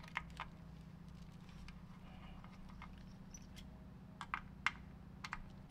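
Faint small clicks and taps of a screwdriver on the heatsink screws of a graphics card as they are undone: a couple at the start and a quick cluster near the end, over a low steady hum that cuts off at the end.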